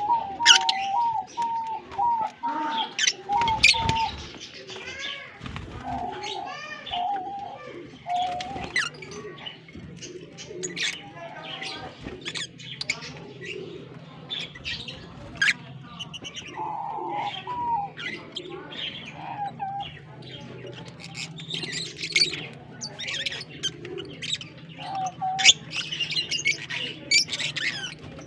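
Lovebirds chirping and screeching: many short, sharp high calls, with a quick run of repeated notes in the first few seconds. A steady low hum comes in about nine seconds in.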